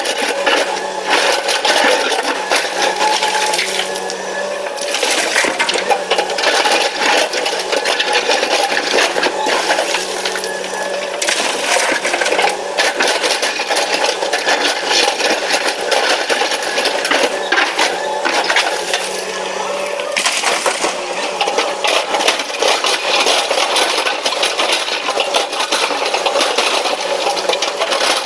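Excavator loading a dump truck: rock and gravel clatter and rattle continuously, over a steady engine hum that comes and goes.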